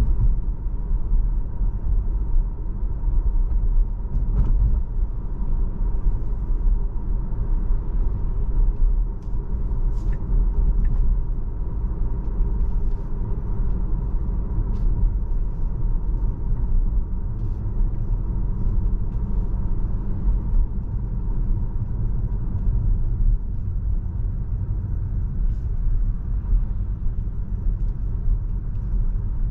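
Tesla electric car driving: steady low road and tyre rumble heard inside the cabin, with a faint steady tone and a few light clicks.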